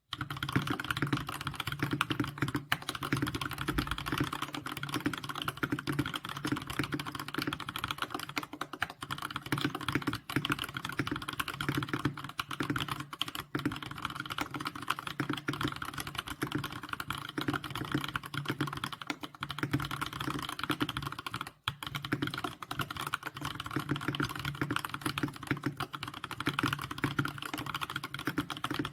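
Typing on a Keychron K6 mechanical keyboard fitted with Bsun Olive tactile switches: a fast, continuous stream of key clacks, with a brief pause about three quarters of the way through.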